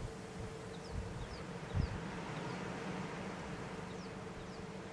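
A steady insect-like buzz, with several faint short high chirps and a soft low bump a little under two seconds in.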